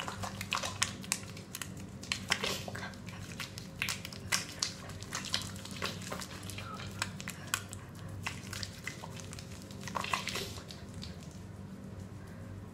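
Wet, soapy hands rubbing lather over a face, making irregular soft squelching clicks, over a steady low hum.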